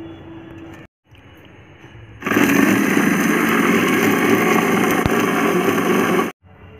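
Electric mixer grinder running, its steel jar grinding whole spices into a masala, starting about two seconds in and cutting off suddenly after about four seconds.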